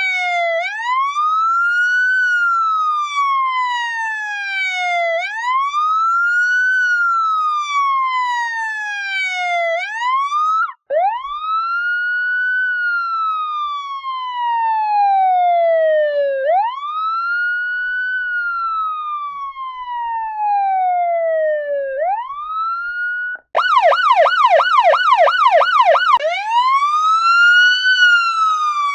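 Electronic police siren in wail mode: the tone rises quickly and falls slowly, one cycle every five or six seconds, with a brief break about eleven seconds in. Near the end it switches for a few seconds to a fast yelp of rapid up-and-down sweeps, about three a second, then goes back to the wail.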